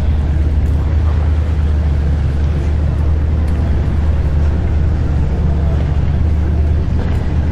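Steady low engine rumble of a boat running, unchanging throughout, with a faint hiss of wind or water over it.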